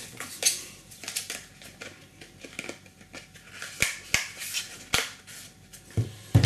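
MJX Bugs 8 racing quadcopter handled in the hands, its motors not running: scattered small clicks, taps and rustles from its frame and propellers, with a louder knock near the end.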